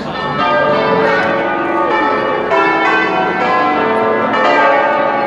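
Church bells pealing festively, with many overlapping strikes several times a second and each ringing on under the next.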